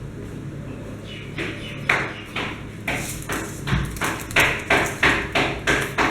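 Hands working at the sealed cardboard packaging of the speaker box, making a quick regular run of scratching, scraping strokes about three a second. The strokes start about a second in and grow louder near the end.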